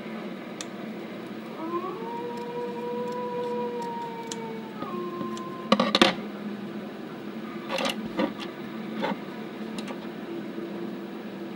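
Scissors handled on a wooden table, with sharp clicks and clatter about six seconds in, followed by short paper-handling rustles. A steady background hum runs underneath, and a held humming tone rises in near the start and drops away after about three seconds.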